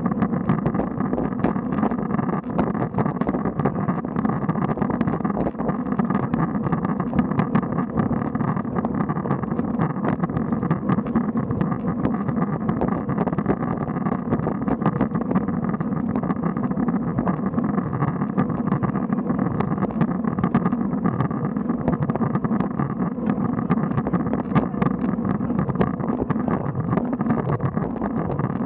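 Steady rumble of wind and tyre noise on a road bike's camera microphone while climbing at low speed, with small clicks and rattles from the bike throughout.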